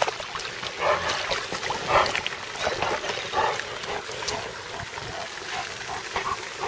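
Dogs swimming and splashing in a pond, with irregular splashes and the dogs' own small noises as they paddle after floating toys.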